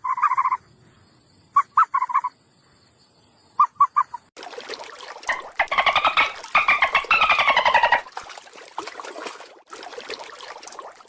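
Animal calls: a short call, then brief chirps in twos and threes. About four seconds in, a longer run of rapid chattering calls starts, rising and falling in pitch, then fades.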